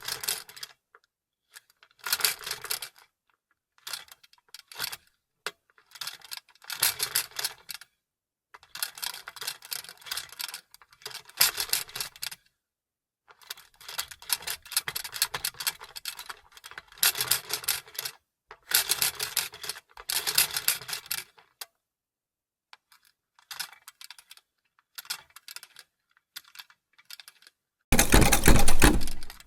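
Vintage sewing machine stitching in short runs of one to two seconds with silent pauses between, the needle mechanism clattering rapidly; a louder, denser run comes near the end.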